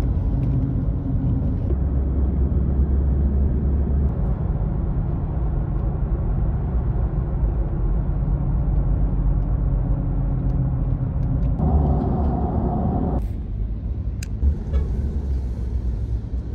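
A steady low rumble, like a road vehicle running.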